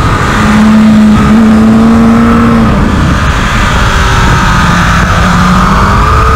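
2021 Kawasaki ZX-10R's inline-four engine at racing speed in second gear, its note falling steadily as the rider brakes off the throttle into a corner, then rising again about a second before the end as the throttle opens on the exit.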